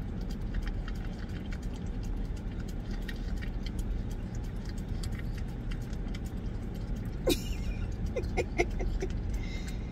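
Yorkie lapping whipped cream from a pup cup: quick small licking clicks over the steady low hum of a car cabin with the engine running. A short high vocal sound falling in pitch about seven seconds in, followed by a few brief blips.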